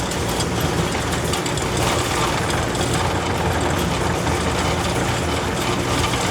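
Diesel engine of a compact loader running steadily while the machine carries a bucket load.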